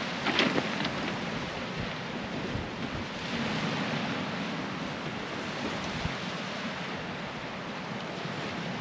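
Small waves washing onto a pebble shore, with wind buffeting the microphone. A few light clicks just after the start.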